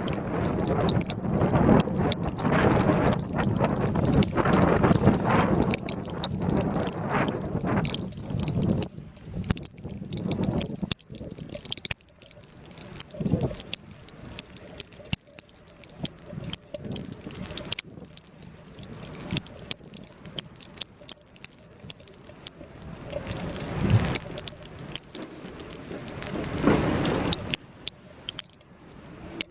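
Blizzard wind buffeting the microphone, loud for the first several seconds and then easing, with scattered knocks and bumps.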